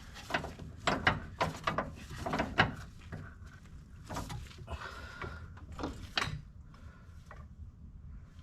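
Irregular knocks, clanks and scrapes of hand tools and metal suspension parts being worked into place under the car. They are loudest in the first three seconds and die away after about six seconds.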